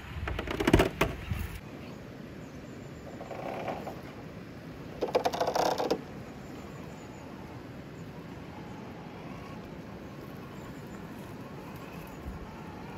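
Traxxas TRX-4 radio-controlled scale crawler working over rock: short bursts of drivetrain whirring and chatter with tyres scraping on stone, the loudest just after the start, over a steady rush from the river.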